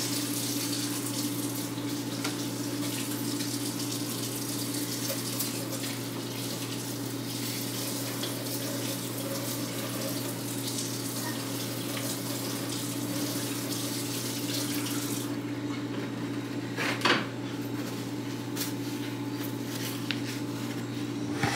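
Kitchen tap running water into a sink, turned off about fifteen seconds in. A single knock follows a couple of seconds later, over a steady low hum.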